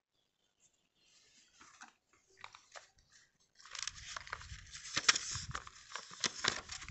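A cardboard incense box being handled close to the microphone: faint rustling and crinkling that turns louder and denser about halfway through, with sharp clicks and a low rumble underneath.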